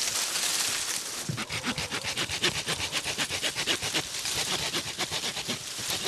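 Saw blade of a SOG PowerLock S60 multitool cutting through a green tree branch, rasping in quick, even back-and-forth strokes.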